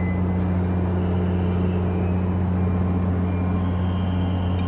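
Steady low mechanical drone of large machinery running, with faint thin high tones above it.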